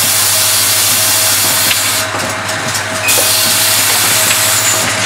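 Pneumatic automated cap-and-insert assembly machine running, with a loud steady hiss of compressed air over a low hum and a few light clicks. The highest part of the hiss drops away for about a second near the middle, then comes back.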